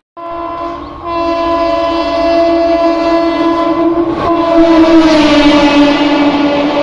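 WAP-4 electric locomotive's horn sounding one long blast as the train approaches at speed, its pitch dropping about four and a half seconds in as the locomotive passes. The rush of the passing coaches grows loud under it near the end.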